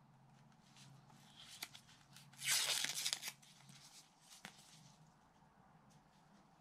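Gloved hands handling a small plastic security camera and its stand: light clicks and rubbing, with one louder rustling scrape lasting about a second, a little over two seconds in.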